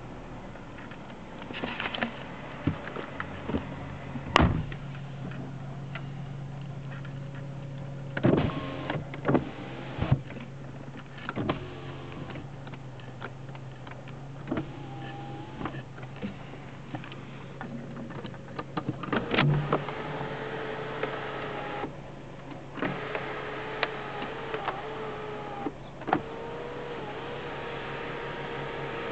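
Mercedes-Benz W220 S-Class cabin with the engine idling as a steady low hum, while the electric window and sunroof motors whir in stretches. Scattered clicks and knocks come through, and a steady motor whir runs through the last third with one short break.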